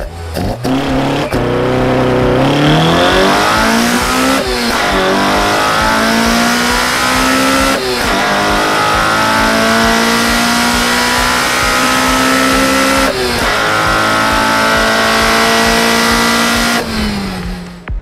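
Toyota 4A-GE Blacktop 20-valve four-cylinder on individual throttle bodies with open trumpets, pulled at wide-open throttle through the gears: the revs climb, drop at each of three upshifts made at about 8200 rpm, and fall away as the throttle closes near the end.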